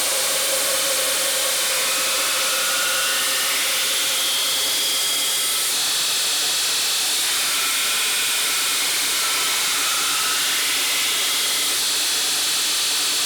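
Steady, continuous hiss from a knifemaking workshop machine, with faint whining tones that drift up and down in pitch.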